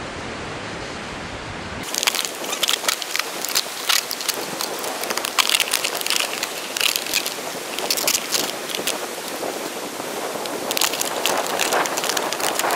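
Empty plastic water bottle crackling and crinkling as it is cut with a knife and handled, a dense run of sharp crackles starting about two seconds in after a steady hiss.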